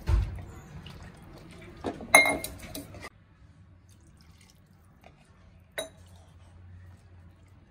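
Metal cookware and utensils clattering. There is a dull thump at the start, a loud clatter that rings for a moment about two seconds in, and one ringing clink near six seconds.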